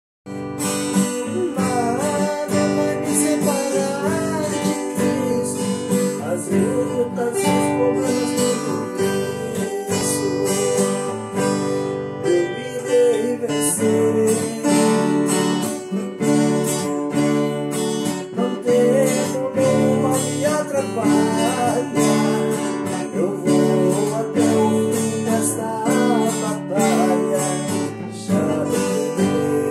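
Viola caipira and steel-string acoustic guitar playing a moda de viola together, with steady strummed chords.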